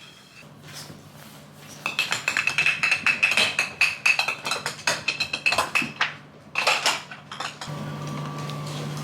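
Rapid, irregular metallic clinking and jingling for several seconds, over a steady high ringing tone. A steady motor-like hum starts near the end.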